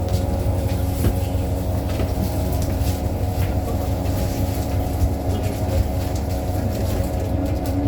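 2018 New Flyer XDE60 diesel-electric hybrid articulated bus running: a steady low drone with several steady tones over it, and scattered small rattles and clicks. The uploader finds this bus's sound unusual compared with other buses of the same model.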